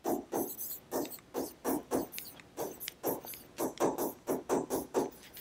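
Stylus strokes while handwriting on a touchscreen: short scratchy taps and scrapes, roughly three a second, in an uneven rhythm.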